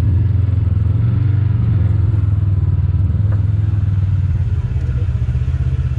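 Off-road vehicle engine running steadily with a deep, even rumble as it works down a rocky trail section.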